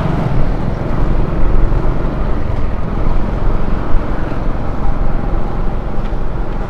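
Motor scooter riding along a road, heard from its handlebar: a loud, uneven rumble of wind on the microphone over the engine and road noise.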